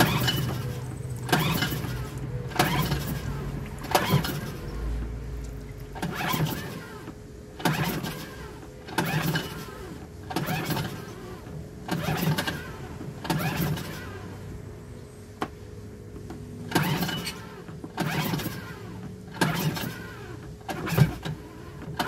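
Suzuki DF2.5 four-stroke outboard being pull-started again and again, the recoil starter cord rasping as it cranks the engine. There are about fifteen pulls, one every second or so, with a short pause about two-thirds through. The engine turns over but never catches: it won't start.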